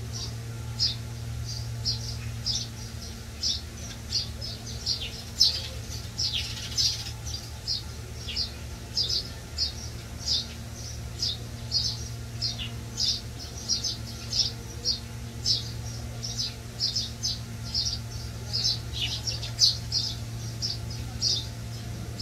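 Small birds chirping steadily, about two short high chirps a second, over a constant low hum.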